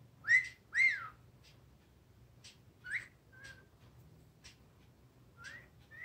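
Blue-headed pionus parrot whistling: two loud whistles in quick succession at the start, each gliding up and then back down, then a shorter rising whistle with a brief level note about three seconds in, and another rising whistle near the end that settles on a held note. Faint soft clicks come between the whistles.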